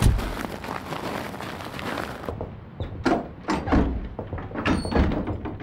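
A heavy door thump, then a noisy hiss that cuts off about two seconds in, followed by several separate knocks and clunks.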